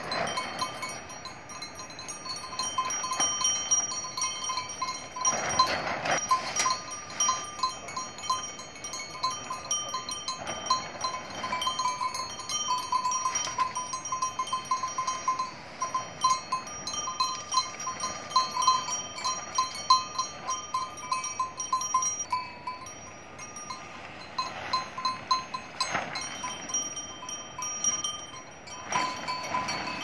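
Livestock bells on a flock of sheep jingling and clanking, several bells at a few steady pitches ringing irregularly throughout.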